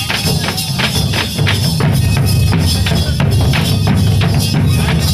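Several dhol drums beaten together by dancers, a fast, steady beat of deep booms and sharp stick strokes.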